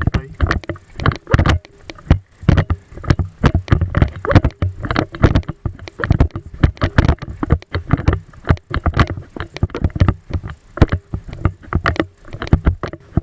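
Rapid, irregular knocks and rustling close to the microphone, several a second, typical of handling noise as the person carrying the camera moves.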